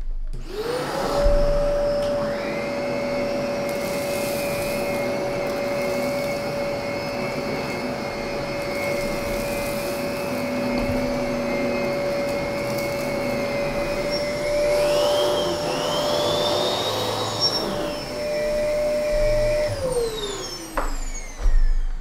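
Canister vacuum cleaner with a powerhead, a high-pitched machine, switched on: its motor spins up with a rising whine, then runs at a steady high pitch. Two higher glides sound in the upper whine about two-thirds of the way in. Near the end it is switched off and winds down with a falling pitch.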